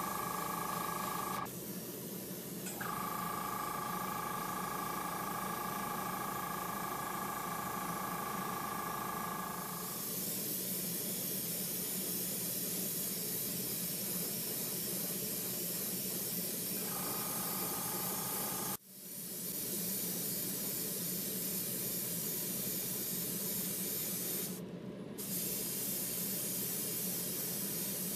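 Airbrush spraying candy paint: a steady airy hiss, over a low steady hum, with a steady whine for roughly the first ten seconds and again briefly near the middle. The sound breaks off abruptly a couple of times.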